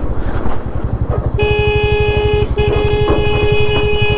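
A vehicle horn sounds in one long steady tone starting about a third of the way in, broken once for a moment, over the rapid low throb of a motorcycle engine running.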